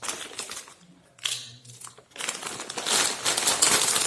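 Packets of a balloon decoration kit crinkling and rustling as they are handled and shuffled. The rustling comes in irregular spells with short pauses, loudest in the last couple of seconds.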